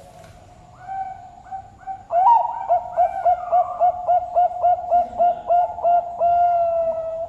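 Zebra dove (perkutut) singing: a few faint notes, then a loud run of short, quick coos about three a second, closing in one long held coo.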